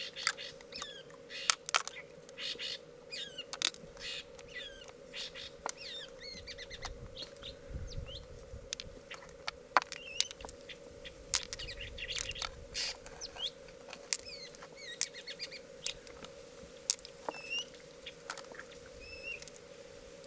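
Small birds chirping in short, quick calls, mixed with many sharp clicks and taps, over a steady low hum.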